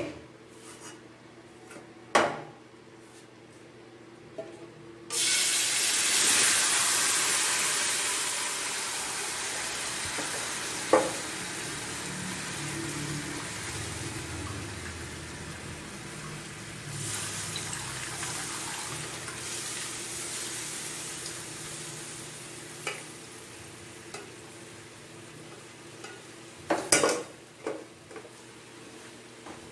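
Chicken drippings poured through a wire mesh strainer into a hot wok: a sudden loud sizzle about five seconds in that slowly dies down over the next twenty seconds. A few sharp knocks near the start and again near the end.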